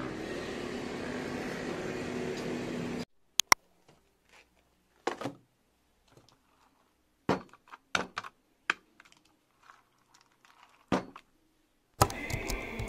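Steady street noise with traffic that cuts off suddenly after about three seconds. Then a quiet room where a cardboard donut box and other small things are handled on a table, giving scattered clicks and knocks. The busy background noise of a café cuts in near the end.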